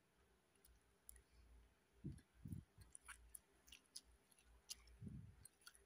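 Near silence with faint mouth clicks and a few soft low thuds from someone chewing cốm dẹp, flattened young green rice with grated coconut.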